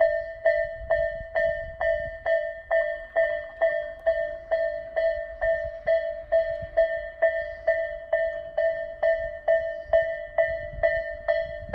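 Tobu Railway level-crossing alarm of the 'Tobu A' type ringing: one bright electronic ding repeated evenly about twice a second, warning that a train is approaching.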